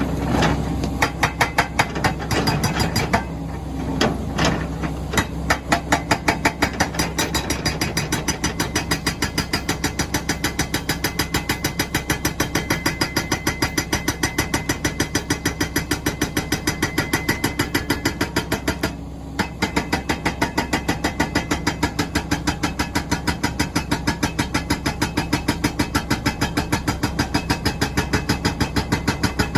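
Rammer hydraulic breaker on a Komatsu PC400LC excavator hammering stone in rapid, even blows, a few a second, over the steady drone of the excavator's diesel engine. The hammering stops briefly a few times, once about two-thirds of the way in.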